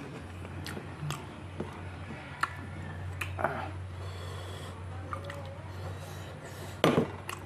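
Eating by hand from a steel plate: rice and curry squished and mixed with the fingers, with scattered light clicks. Near the end comes a loud clank of the small steel bowl being set down. A steady low hum runs underneath.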